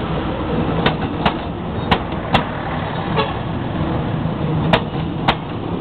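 Train passing close by with a steady rumble; its wheels click over the rail joints in pairs about half a second apart, three pairs in all.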